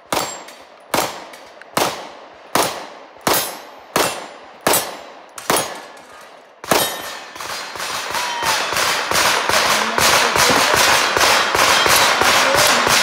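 Handgun fired at falling steel plate targets: a steady string of about eight shots, roughly three-quarters of a second apart, each with a short echo. After one more shot about six and a half seconds in, a dense, rising wash of sharp crackling noise fills the rest.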